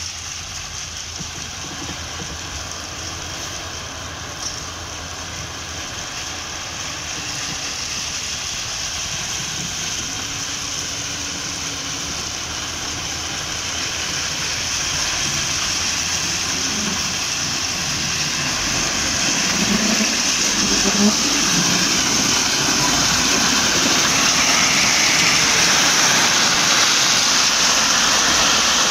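Rail-wheeled tipper lorry running slowly along the track with its body raised, its engine rumbling under the steady rushing hiss of ballast stone pouring out onto the rails. The sound grows steadily louder as the lorry draws near.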